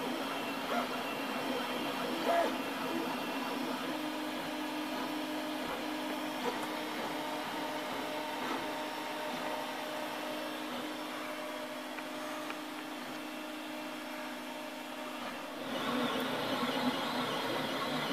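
ROBO R1 3D printer laying down the first layer of an ABS print, its motors whining in held tones that step up and down in pitch as the print head moves. About 16 seconds in, the sound gets louder and brighter.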